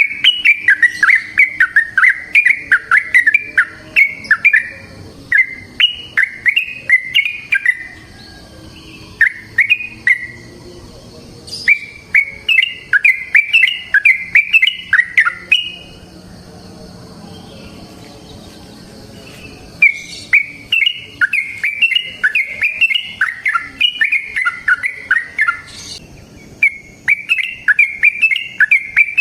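Yellow-vented bulbul (trucukan) singing its long, rapid bubbling song in repeated runs of quick chirping notes, with a few short breaks and one longer pause of a few seconds in the middle.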